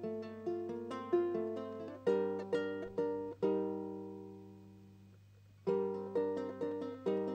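Ukulele played solo with no voice: quickly picked notes, then several chords struck and left to ring. One chord fades out for about two seconds before playing picks up again near the end.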